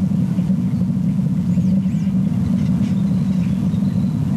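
Steady low rumble, with a few faint high bird chirps over it.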